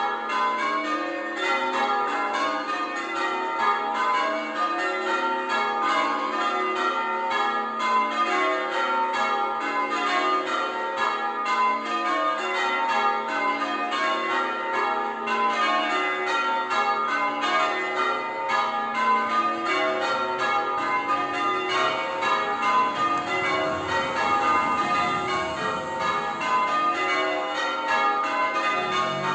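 Church bells change ringing: a continuous, even run of full-circle bell strokes in changing order, many tuned bells sounding one after another. A low rumble swells and fades under the bells about three-quarters of the way through.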